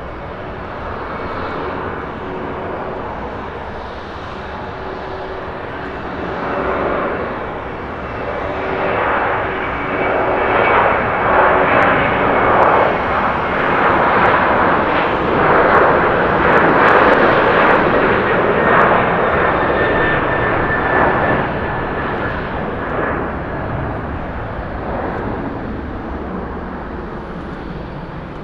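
Boeing 737-800's two CFM56-7B turbofan engines at takeoff thrust during the takeoff roll and climb-out. The jet noise builds as the airliner accelerates down the runway, is loudest near the middle as it passes, then fades as it climbs away, with a faint whine falling in pitch as it goes by.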